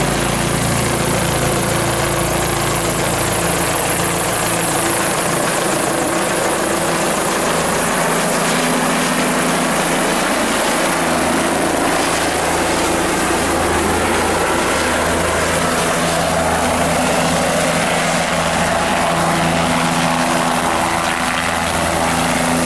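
Helicopter's main rotor and engine running at a steady loud level as it flies low overhead and descends to hover just above the ground, the low hum shifting a little in pitch as it moves.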